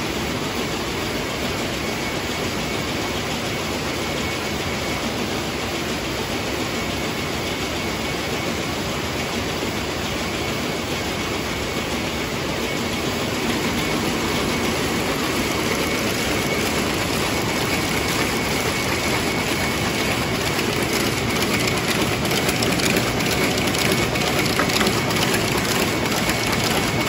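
Water-jet weaving looms running, a dense, steady mechanical clatter that gets a little louder about halfway through.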